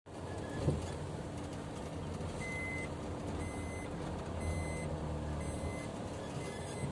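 Car interior with a steady low engine-and-road rumble while driving on a dirt track, and an electronic in-car warning beeper sounding about once a second from about two and a half seconds in. A single knock about a second in.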